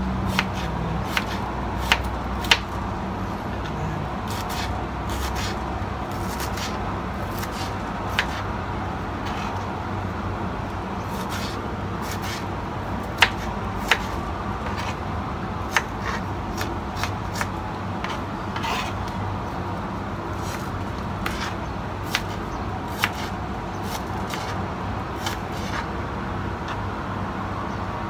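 Kitchen knife chopping a red onion on a plastic cutting board: irregular sharp taps of the blade against the board, with soft slicing scrapes between, over a steady background noise.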